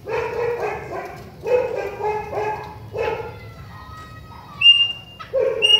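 Chopi blackbird (pássaro-preto) singing: a few short, rich, rasping phrases, then clear high whistled notes near the end.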